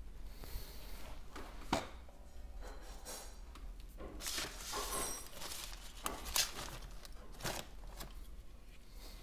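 Small repair tools clicking, tapping and scraping against an iPhone's frame and parts: scattered sharp clicks, two of them louder, about two seconds in and past six seconds, with a short stretch of scraping between them.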